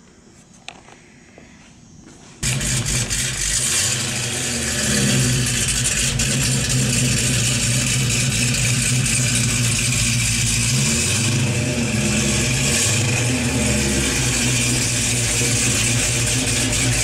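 Chevrolet LS3 V8 in a 1968 Camaro, running at idle with small rises and falls in pitch now and then. It cuts in suddenly after about two seconds of faint room sound.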